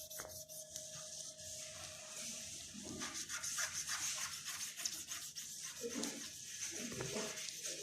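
Faint, rapid rubbing strokes: old ACF bonding residue is being scrubbed off the edge of an LCD panel's glass with raw acetone.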